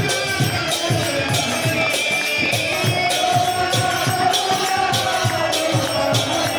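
Bengali harinam kirtan: group chanting over a harmonium, with a two-headed khol drum striking and hand cymbals (kartals) clashing in a steady, even beat.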